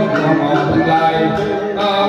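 Buddhist ritual chanting sung in long held notes over instrumental music.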